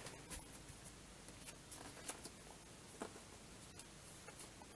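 Near silence: room tone with a few faint, brief clicks and rustles.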